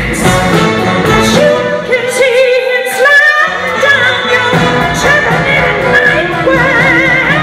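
A live band playing a song with a singer's voice on wavering, vibrato-laden notes. The bass and drums drop out for about a second near the middle, then come back in.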